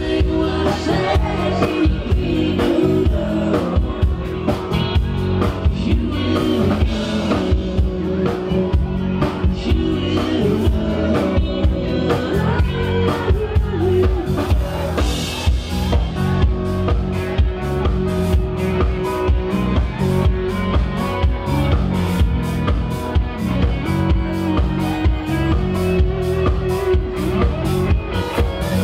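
Live rock band playing a song: drum kit keeping a steady beat under electric bass and electric guitar.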